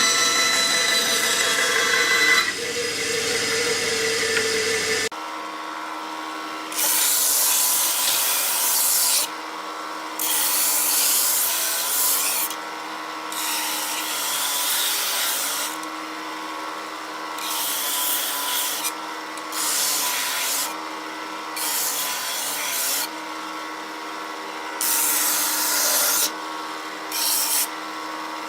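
Homemade electric sanding machine running, with a steady motor hum and about ten bursts of harsh sanding noise, each lasting one to three seconds, as a workpiece is pressed against the abrasive. The motor's note wavers under each load. A different motor whine is heard for the first few seconds.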